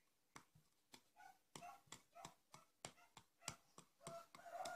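Faint handling noise of hands working with small objects at close range: many quick, irregular clicks and light rustles, with a short faint tone coming in near the end.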